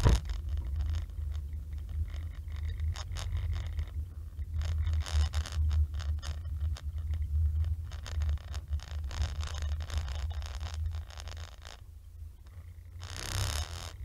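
Low steady rumble of a car driving, heard from a dashcam inside the car, with frequent short scratchy rattles and a louder burst of hiss near the end.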